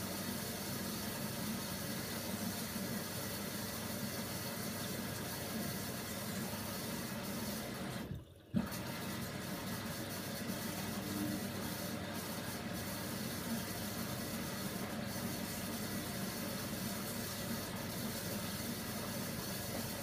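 Hoover Nextra HNWL 7146 front-loading washing machine turning a wet duvet in its drum: steady water sloshing over a low motor hum. About eight seconds in the sound cuts out briefly and comes back with a sharp click.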